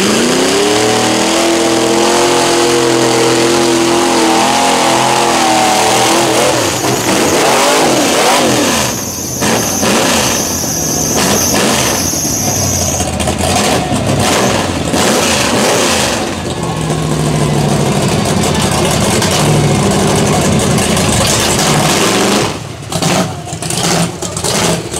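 Lifted Chevrolet mud truck's engine revved hard, its pitch climbing sharply and held high for several seconds while the tractor tires spin in the mud. The pitch then wanders, and the engine settles to a lower, steady run as the truck rolls out.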